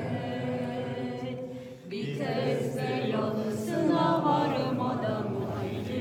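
A group of people singing together: one long held note, a short break a little before two seconds in, then more voices rising and falling in pitch.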